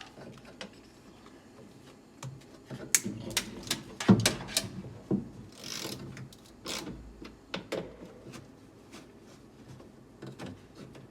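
Scattered clicks, taps and knocks of car door parts being handled and fitted back into the door, the loudest knock about four seconds in, with a short scrape near six seconds.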